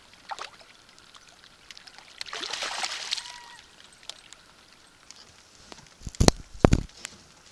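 A hooked northern pike thrashing and splashing at the surface beside an aluminium canoe as it is landed. About six seconds in come two loud knocks, the loudest sounds, as the fish is lifted aboard.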